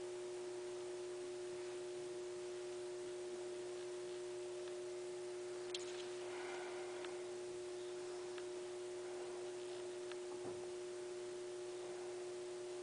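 A steady, faint electrical hum at one pitch, with a few faint clicks and taps, the kind of small handling noises made near the microphone.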